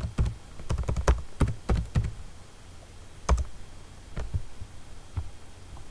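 Typing on a computer keyboard: a quick run of keystrokes for about two seconds, then a few single clicks.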